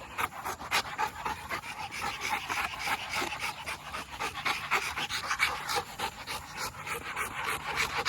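American bully dog panting hard and fast, a quick even run of breaths, after running after a ball in hot weather.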